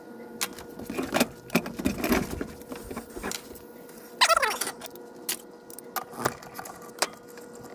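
Small metal horn parts and screws clinking and knocking as they are handled on a wooden workbench, a dozen or so sharp clicks, with a short falling metallic screech about four seconds in.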